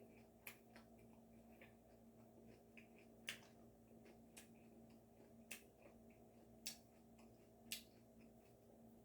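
Faint mouth clicks and smacks of a person chewing food, about one a second and uneven in strength, over a steady low appliance hum.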